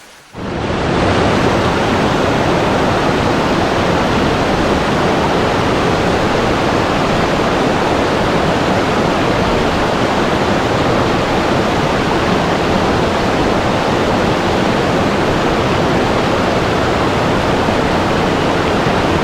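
Loud, steady rushing of water, cutting in abruptly a fraction of a second in and holding even.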